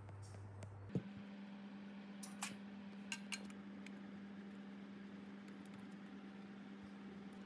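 Small metal parts lightly clinking four times, in two quick pairs, as a steel bracket and screw are fitted into a painted steel spring-scale housing, over a faint steady hum.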